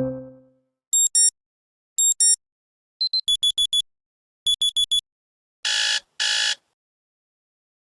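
Electronic phone alert tone from Android 14 Go Edition: pairs of short high beeps, then two quick runs of four beeps, ending with two longer buzzy tones. A low chime from the previous tone dies away at the start.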